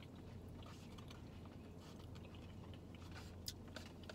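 Close-up chewing of a Chipotle burrito bowl, with a few faint clicks and scrapes among the mouth sounds, over a steady low hum.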